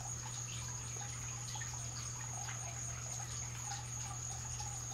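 Quiet steady background noise: a constant low hum with a thin, steady high whine over it and faint scattered ticks.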